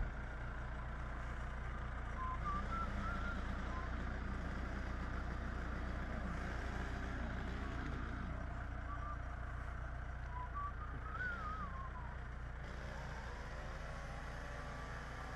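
Backhoe loader's diesel engine running steadily at low revs, with faint high warbling tones twice.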